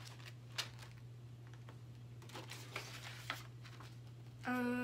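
Sketchbook paper being handled and pages turned: scattered short rustles and light taps. Near the end a single hummed note, held steady for about a second, is the loudest sound.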